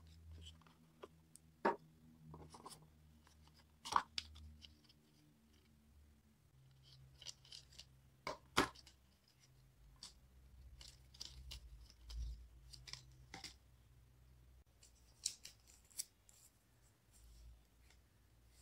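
Quiet hand handling of a smartphone's retail box and packaging: scattered light clicks, taps and scrapes of cardboard, paper and plastic as the inserts, charger and phone are lifted out, with a few sharper knocks.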